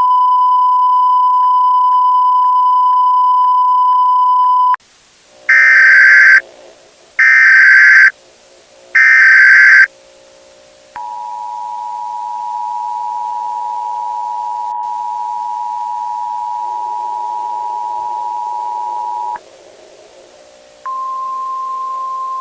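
Emergency Alert System broadcast tones. A steady single test-like tone holds for about five seconds, then three loud, harsh one-second bursts of the SAME digital header, then the two-tone EAS attention signal for about eight seconds. Near the end a single steady alert tone starts, with quiet ominous background music underneath.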